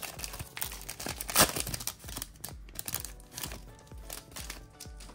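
Foil wrapper of a trading-card pack crinkling and tearing as it is pulled open, in a run of sharp crackles, loudest about a second and a half in.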